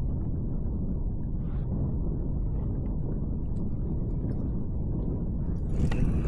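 Wind buffeting the microphone: a steady low rumble with a few faint light clicks.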